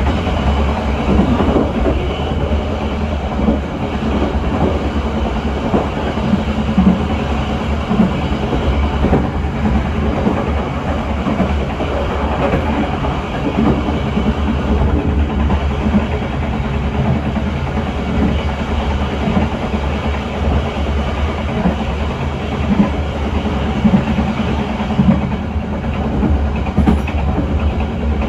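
Locomotive-hauled passenger train running along the track, heard from the rear of the last coach: steady wheel-on-rail noise over a strong low rumble, with small irregular knocks.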